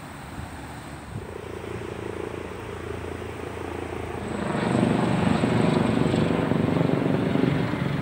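Helicopter flying overhead, its rotor and engine noise swelling about four seconds in and then holding steady.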